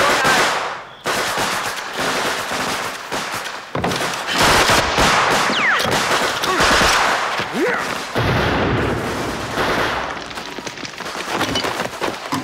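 Battle gunfire: rapid machine-gun bursts mixed with rifle shots, dense and nearly continuous, with two short whistling glides near the middle.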